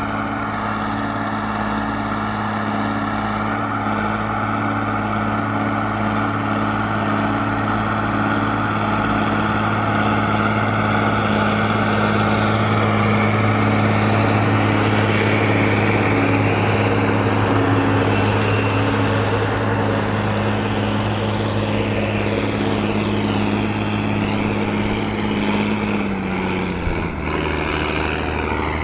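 Large tractor's diesel engine running steadily under load while pulling a plough. About 26 seconds in, the engine note drops and settles lower.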